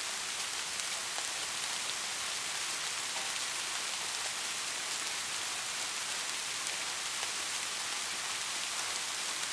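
Soft rain falling steadily: an even hiss with a fine patter of individual drops, unchanging throughout.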